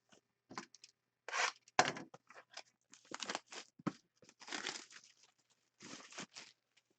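Packaging being torn open and crinkled by hand, in a string of irregular rips and rustles.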